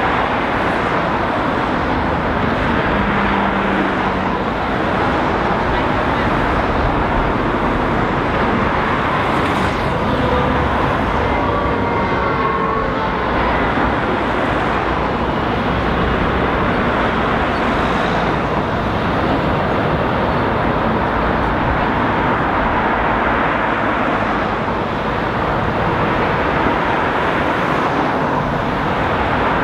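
City street traffic: cars passing on the road, with a continuous wash of engine and tyre noise.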